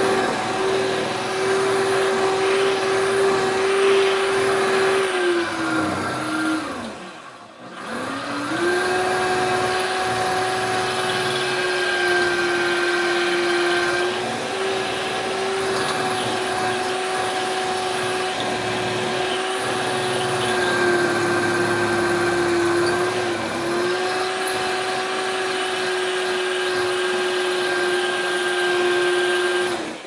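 Electric drill boring into a Defiant deadbolt, heard through the closed door: a steady motor whine. It winds down and stops about six seconds in, spins back up about two seconds later, sags briefly in pitch a couple of times under load, and cuts off at the end.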